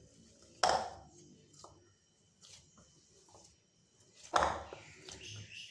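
Hands kneading a gram-flour and rice-flour seva dough in a bowl: two short handling sounds, one shortly after the start and one near the end, with a few faint small clicks between.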